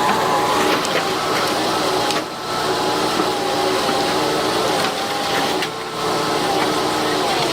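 Machine engine running at high revs with a wavering whine, dropping off briefly twice.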